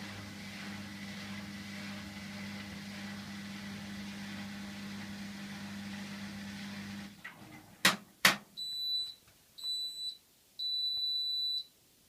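Hotpoint washing machine running with a steady hum that stops about seven seconds in, followed by two loud clicks and then three high electronic beeps, the last one longer: the machine signalling the end of its cycle.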